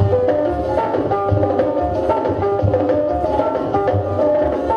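Dance music played loud over a party sound system, with drums and percussion over a steady bass beat and a held melody line.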